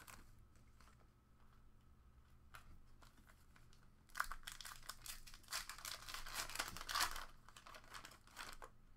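Foil wrapper of a Panini Prizm basketball card pack crinkling and tearing as it is pulled open by hand. The crackling starts about four seconds in and lasts about three seconds, with a few more crinkles near the end.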